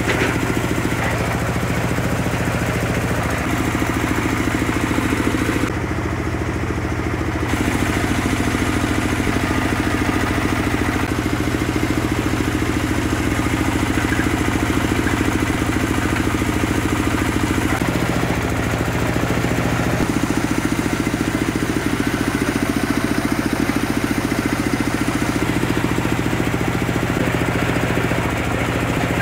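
The tractor engine that powers a hydraulic water-well drilling rig, running steadily. Its tone changes briefly a couple of times, about six seconds in and again near eighteen seconds.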